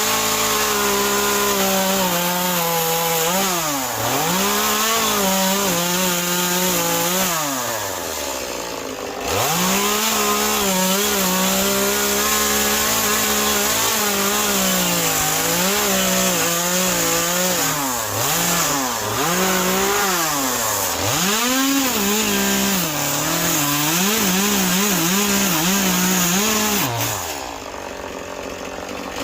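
Two-stroke carving chainsaw cutting into a wet cedar stump: the engine runs at high revs, its pitch sagging and recovering again and again as the chain bites into the wood. It drops back to a lower idle twice, at about eight seconds and near the end, before revving up again.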